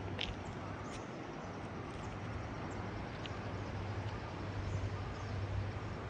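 Steady outdoor rushing noise with a faint low hum underneath and a single light click about halfway through.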